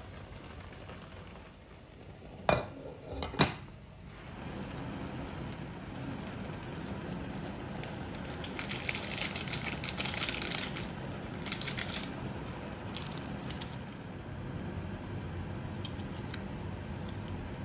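Cookware sounds as instant noodles cook in a pot on an induction hob: two sharp knocks about two and a half and three and a half seconds in, then a steady low hum. Around the middle, a nylon spaghetti server stirs and scrapes the noodles in the pot.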